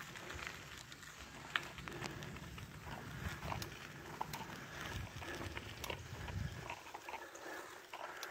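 Bicycle rolling slowly on a gravel road: scattered small crunches and ticks from the tyres on gravel over a low rumble, which dies down near the end.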